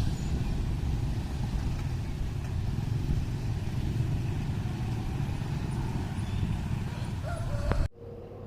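Train running, a steady low rumble. Near the end it cuts off abruptly to a quieter steady hum.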